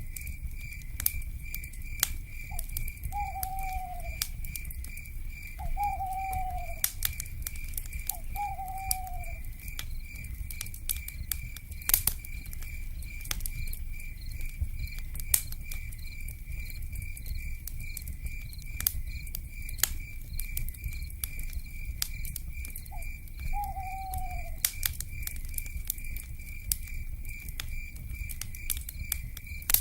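Wood fire crackling with scattered sharp pops over a low rumble, under a steady, rapidly pulsing insect trill. An owl gives three short falling hoots a few seconds in and one more near the end.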